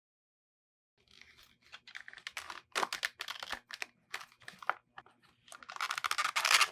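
A leather tool organizer and its tools being handled, starting about a second in: irregular rustling, scraping and clicking as tools are slid in and out of its slots, with the longest, loudest scrape near the end.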